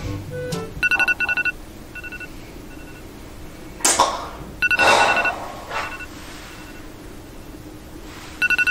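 Mobile phone alarm beeping: groups of quick, high two-tone beeps repeating about every four seconds, each group followed by fainter beeps. Two short swishes of noise come about four and five seconds in.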